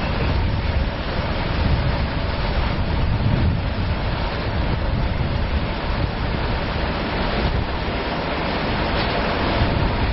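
Steady rumble and hiss of outdoor street noise, with wind buffeting the microphone.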